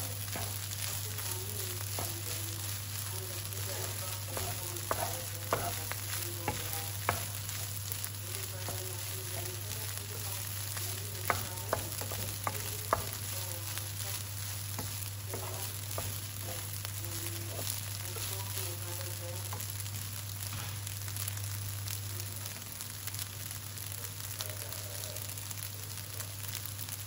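Rice sizzling as it fries in a hot non-stick pan, stirred and turned with a wooden spoon. A few sharp knocks of the spoon against the pan stand out, several about a fifth of the way in and a cluster near the middle, over a steady low hum.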